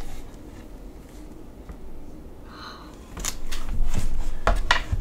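Handling noise from a hardcover picture book: quiet room tone, then from about three seconds in rustling with several light clicks and low knocks as the book is moved.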